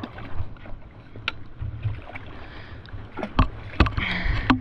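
A few sharp knocks and bumps on a small boat, the loudest about three and a half to four seconds in, with a short rush of noise near the end, over a low wind rumble on the microphone.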